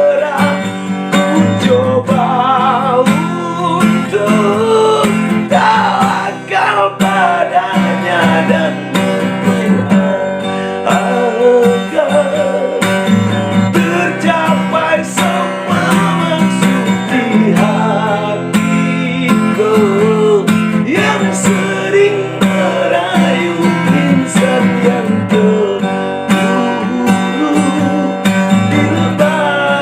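Slow rock song in an instrumental passage: a guitar carries a wavering melody line over a steady low backing.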